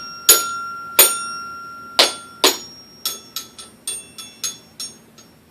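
Toy xylophone bars struck one at a time, each note ringing: four louder strikes spread over the first two and a half seconds, then a quicker run of softer taps that fades out near the end.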